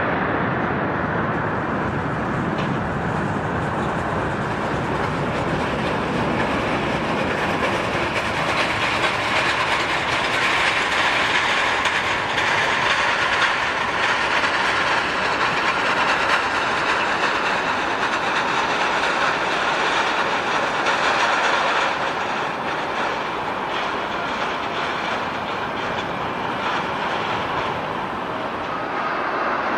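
Jet airliner engine noise: a steady rushing sound that grows louder from about eight seconds in and drops suddenly a little past twenty seconds.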